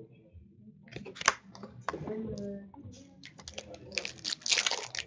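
Hockey card pack wrapper being torn open and crinkled, with cards slid and shuffled by hand: a run of quick crackles and clicks that grows thickest near the end.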